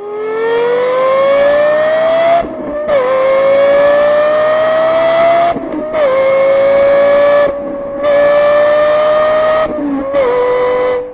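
Lexus LFA's 4.8-litre V10 accelerating hard from first gear up to fifth, its pitch climbing steadily in each gear and dropping sharply at four quick upshifts, about 2.5, 5.5, 7.5 and 10 seconds in; the climbs grow shallower in the higher gears.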